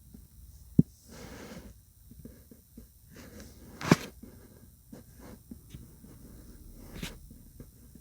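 A few sharp taps or knocks, under a second, about four seconds and about seven seconds in (the middle one the loudest), with soft rubbing and rustling in between.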